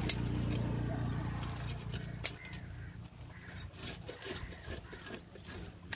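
Knife work on a fish at a cutting block: a few sharp knocks of the blade striking the block, with fainter ticks and scraping between them, over a steady low hum.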